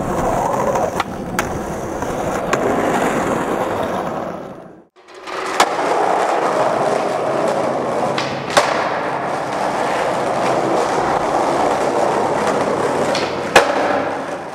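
Skateboard wheels rolling and grinding over rough ground, a steady noisy rush with occasional sharp clacks of the board. The sound fades out at about four and a half seconds and starts again about half a second later.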